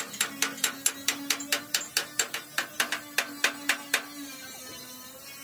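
Hammer blows on sheet metal, rapid and evenly paced at about four or five a second, each with a short metallic ring; they stop about four seconds in, leaving a steady low hum.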